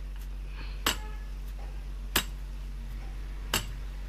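Three sharp metallic clinks about 1.3 s apart, as a motorcycle front-fork tube and the steel T-handle rod inside it knock together, over a steady low hum.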